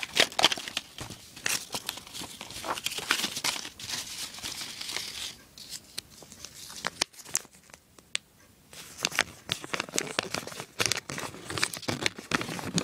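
Paper crinkling and rustling in irregular bursts as a handwritten raffle slip is handled, with a quieter stretch around the middle.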